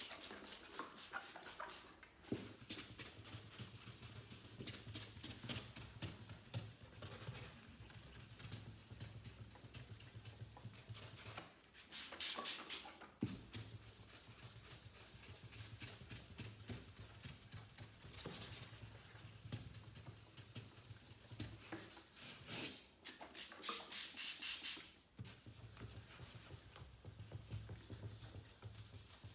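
Sandpaper rubbed by hand over a car's painted panel: short bursts of quick, even back-and-forth strokes, near the start, about twelve seconds in and again about twenty-three seconds in, with slower single strokes between.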